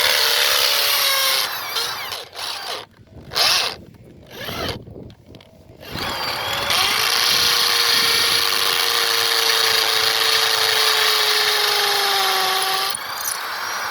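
Corded hammer drill with an 8 mm masonry bit drilling into concrete in hammer mode. It runs, stops and restarts in short bursts, then runs without a break for about seven seconds before stopping near the end, its motor pitch sagging slightly during the long run.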